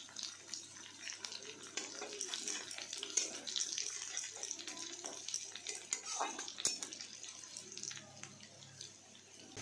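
Whole cumin seeds and ginger paste sizzling in hot oil in a kadai, a steady hiss full of small crackles, while a spatula stirs and scrapes the pan.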